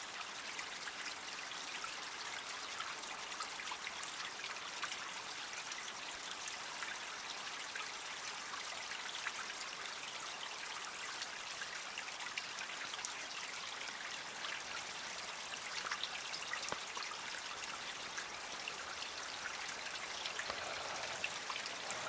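Small creek's water trickling and splashing: a steady hiss of running water, flecked with many small droplet-like ticks.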